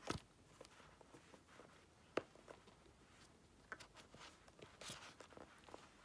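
Faint handling noises from a cardboard Apple Pencil box as its inner tray is slid out of the sleeve: a sharp tap at the start, another about two seconds in, and a soft scrape near the end.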